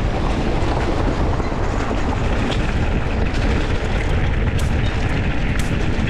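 Steady, loud wind buffeting on the rider's camera microphone as a mountain bike rolls along a dirt trail, with a deep rumble and a few scattered sharp clicks.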